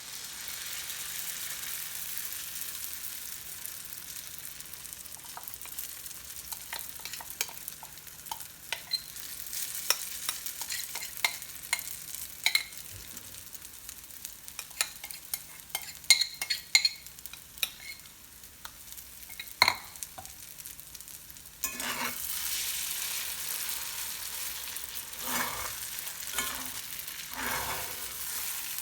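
Food frying in hot oil in a pan: a steady sizzle while a spatula stirs and scrapes, clicking against the pan many times. About three-quarters of the way through, the sizzle suddenly gets louder.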